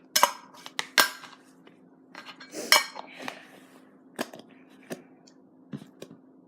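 Small slime and putty containers being handled and set down: a series of sharp clicks and knocks, about ten, the loudest a short clatter a little under three seconds in.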